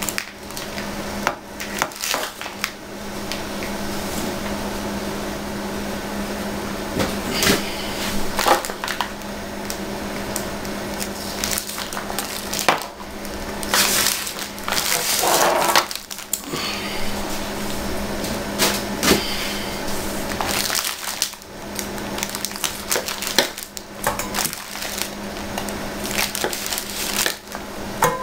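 Plastic wrap crinkling and crackling, with irregular knocks, as a rack of ribs is handled and cut into pieces on a counter. A steady low hum runs underneath.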